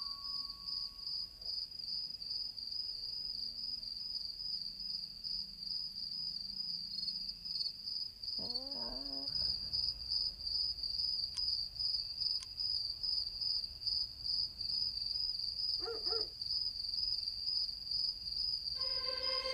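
Crickets chirping in a steady, fast pulsing trill. Two brief low calls cut in, one about eight seconds in and a shorter one near sixteen seconds.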